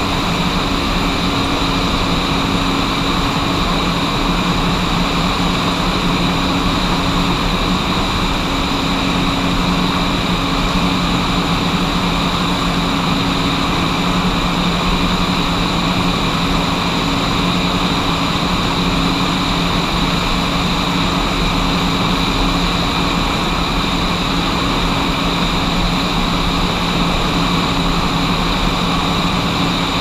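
Steady drone of farm machinery: a John Deere S680 combine harvesting corn while its unloading auger pours grain into a grain cart, heard with the tractor towing the cart. It is an even hum with several held tones over a hiss, with no change in pace.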